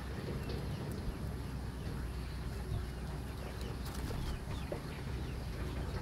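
Outdoor ambience: a steady low rumble with faint, short bird-like calls and a few light clicks.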